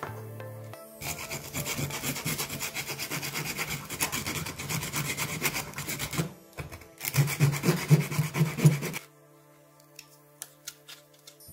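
Sandpaper rubbed by hand over the end of a beech Domino tenon rod, in quick back-and-forth strokes. The rubbing starts about a second in and pauses near six seconds. A second, louder bout of strokes follows and stops at about nine seconds.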